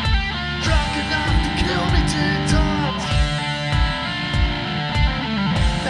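Band music: guitar notes, some sliding in pitch, over a steady kick-drum beat about twice a second.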